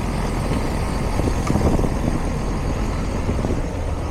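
Outdoor air-conditioning condensing unit running, a steady mechanical hum and rush from the compressor and condenser fan.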